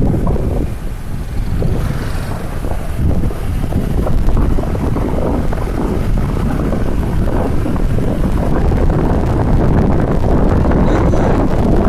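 Steady rushing noise, heaviest in the low rumble, with wind buffeting the microphone.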